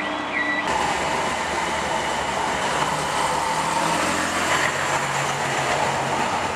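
Diesel engine of a Bristol double-decker bus running close by as the bus moves off and pulls past, a steady low engine note with road noise.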